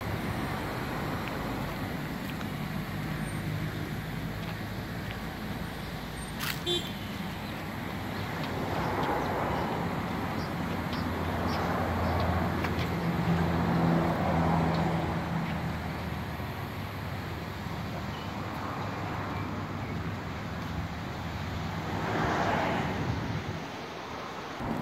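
Road traffic: the rumble of vehicles passing, swelling and fading several times, with a single sharp click about six and a half seconds in.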